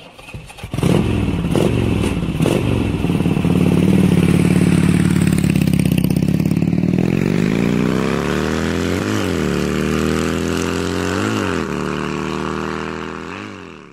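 Motorcycle engine sound effect: a few sharp clicks at first, then the engine running and climbing in pitch, with three quick revs about two seconds apart before it fades out.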